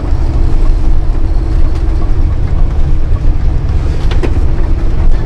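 Heavy truck on the move, heard from inside the cab: a steady low engine and road rumble, with two short knocks near the end.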